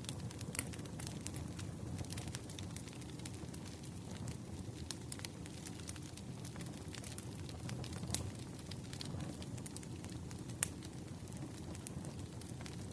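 Firewood burning: a wood fire crackling, with frequent sharp pops over a low, steady rumble.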